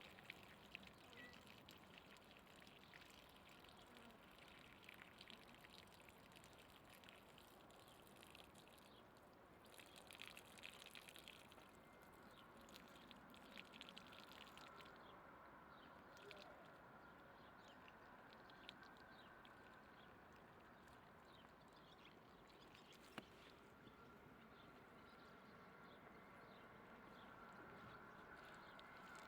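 Faint trickle of running water, with scattered small drips and splashes and one sharp click about 23 seconds in.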